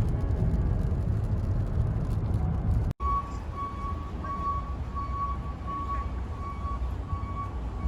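Low, steady road rumble of a car in motion. After a cut about three seconds in, a high electronic beep repeats about twice a second over the rumble.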